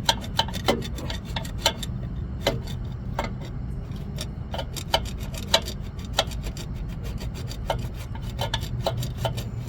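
Hand scraping of metal: irregular scraping strokes and clicks as paint is scraped off a ground point on a freshly painted engine to bare metal for a good ground connection. A steady low hum runs underneath.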